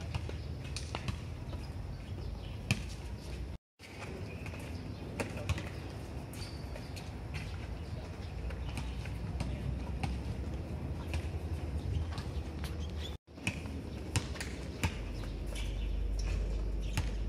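Footfalls of people skipping with high knees on a rubberized running track, scattered light taps and thumps over a steady low rumble. The sound drops out briefly twice, and the rumble grows louder near the end.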